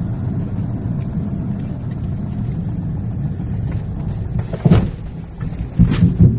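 Mahindra XUV700 on the move: a steady low rumble with two loud knocks about five and six seconds in. This is the knocking suspension noise, which the owner puts down to a bent suspension part repeatedly hitting the body.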